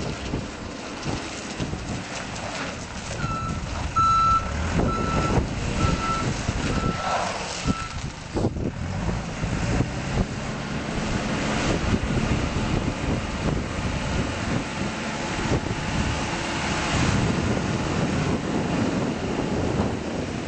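Terex TX760B backhoe loader's diesel engine running, with its reverse alarm beeping at about two beeps a second for roughly five seconds as the machine backs up.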